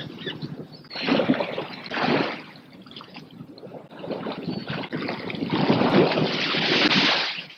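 Wind and sea rushing past a sailing ship under way, coming in surges, with a long, loud swell near the end that drops away suddenly.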